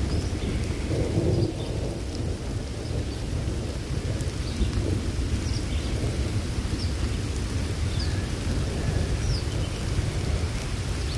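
Birds chirping outdoors, short high chirps about once a second, over a steady low rumble of outdoor noise.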